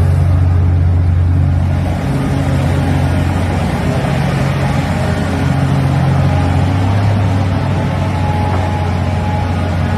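A loud, steady, low engine drone whose pitch steps up and down a few times.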